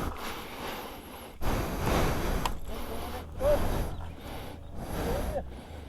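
Motorcycle riding over rough off-road ground: the engine runs under the noise of heavy wind buffeting on the microphone, which comes in uneven surges, with short pitch sweeps now and then.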